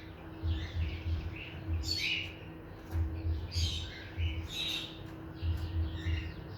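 Small birds chirping: many short, high calls scattered throughout, over a low rumble that comes and goes.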